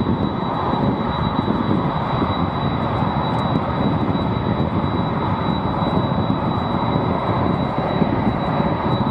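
Boeing 777-300ER's twin GE90-115B turbofan engines at takeoff power during the takeoff roll and rotation: a steady, loud, deep jet roar, with a thin steady high tone over it.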